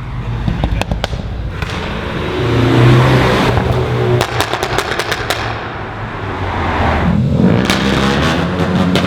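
Cars passing on a race track, engines revving with exhaust pops and crackles: sharp bangs scattered through, a louder car passing about three seconds in, and another accelerating near the end.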